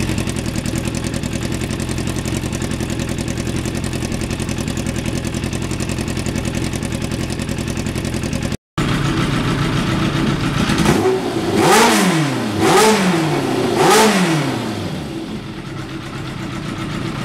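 1991 Yamaha FZR1000's inline-four engine idling steadily. After a brief break in the sound it is revved in three quick throttle blips about a second apart, each rising and falling in pitch, then it settles back to idle.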